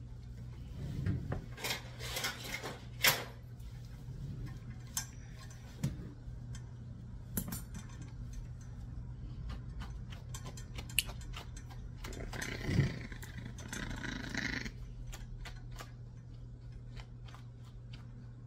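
Yorkie Biewer puppy growling in rough spells, with many sharp metal clicks from grooming scissors snipping close to its face.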